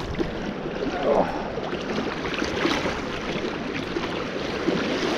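Steady rushing and splashing of river water around the legs of someone wading through a shallow current.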